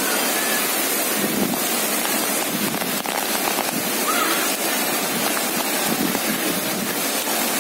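Heavy rain falling steadily, a dense even hiss, with a child's faint call about four seconds in.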